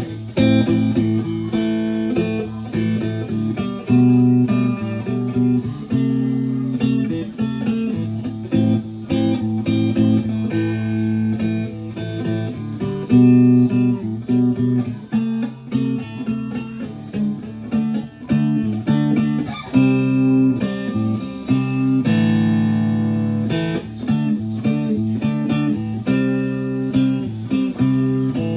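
Chambered Telecaster electric guitar in an open tuning, played as a continuous passage of picked notes and ringing chords.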